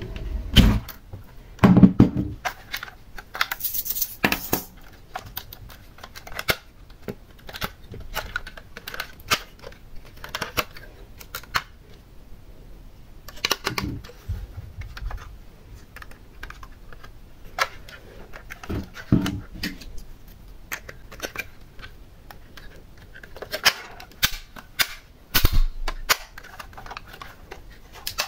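Scattered clicks, knocks and rattles of a plastic toy SUV being handled on a table: rolled along on its wheels, then its doors opened and shut.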